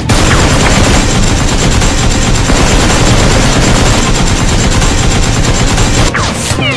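Machine-gun sound effect dubbed over a toy blaster: a continuous burst of automatic fire for about six seconds that then cuts off, followed by a few short falling tones.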